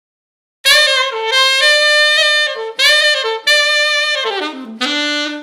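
Saxophone playing a short phrase of separate held notes, starting under a second in, with a quick falling run of notes near the end.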